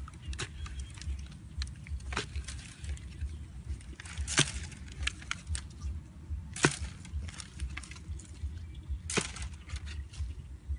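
A long-handled digging tool striking down into the ground: four heavy strikes about two and a half seconds apart, with lighter knocks and scrapes of dirt between, over a steady low rumble.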